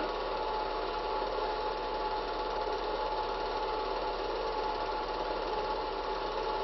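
Cine film projector running: a steady mechanical whirr with a fine, even rattle and a constant thin whine, under a low hum.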